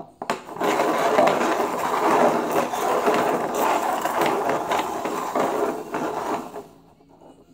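Plastic cups being shuffled and slid across a ceramic tile floor: a dense run of scraping with many quick knocks as the cups bump and are set down, stopping near the end.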